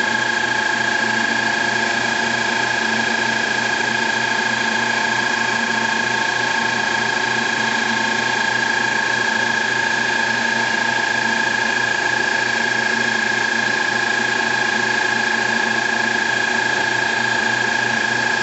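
CNC-converted Grizzly G0602 metal lathe running a cut on aluminium, with a steady high whine from its motors that holds an even pitch throughout.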